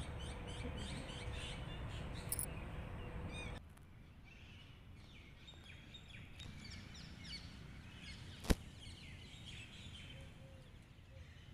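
Birds chirping and calling over steady outdoor background noise. The background noise drops suddenly about three and a half seconds in, and a single sharp click comes about eight and a half seconds in.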